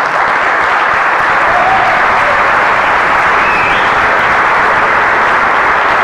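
Audience applauding, a dense steady clapping from a large crowd.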